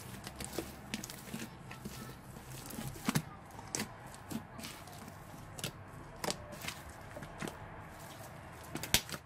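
Sticky slime being squeezed and kneaded by hand in a wet bowl, making irregular wet pops and clicks, the loudest about three seconds in and again near the end.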